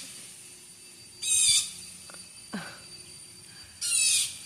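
A bird giving short, harsh, buzzy high-pitched calls, twice, a couple of seconds apart, with a faint steady high whine underneath.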